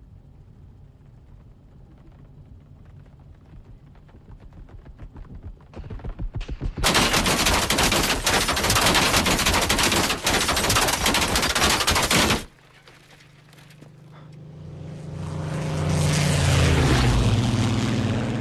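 Long burst of rapid machine-gun fire from a strafing fighter plane, building from scattered shots to about six seconds of continuous fire that cuts off suddenly. A propeller fighter's engine then swells in loudness as it passes low overhead, its pitch falling as it goes by.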